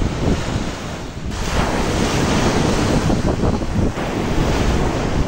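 Sea waves breaking and washing onto a sandy beach, with strong wind buffeting the microphone. The hiss of the surf grows fuller about a second in.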